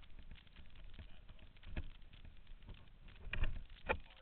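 Fingers handling a GoPro camera housing close to its microphone: scattered taps and rubs on the case, with a louder knock a little under two seconds in and two more near the end.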